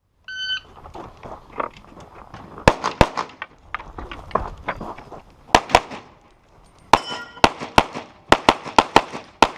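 Shot timer beep, then a string of pistol shots: two a few seconds in, two more after a pause, and a fast run of shots in the last three seconds. Some shots are followed by a brief metallic ring, as of steel targets being hit.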